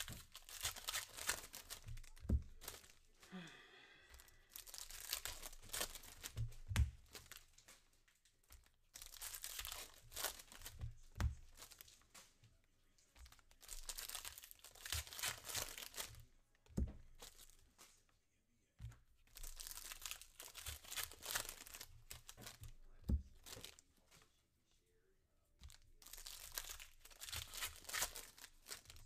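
Foil wrappers of 2023 Phoenix football card packs crinkling and tearing as they are ripped open by hand, in about six bursts of a couple of seconds each, with a few soft thumps in between.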